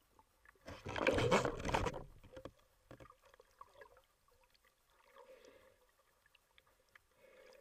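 Underwater through a camera housing: a loud rush of water and bubbles about a second in, lasting about a second, as a breath-hold diver goes down, then faint scattered clicks and a faint hum.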